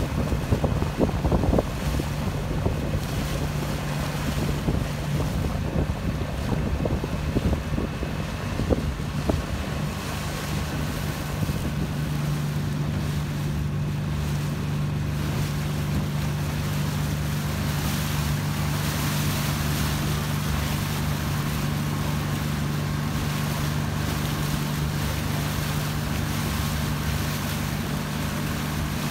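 A motorboat's engine running at a steady speed, over the rush of water along the hull. Wind buffets the microphone in gusts during the first several seconds, then eases.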